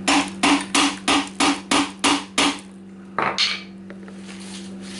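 A hammer rapping the handle of a screwdriver set into a rust-seized bolt in a moped engine's crankcase: about eight quick, sharp strikes, about three a second, for the first two and a half seconds, then a scrape and a softer knock a little after three seconds. A steady low hum runs underneath.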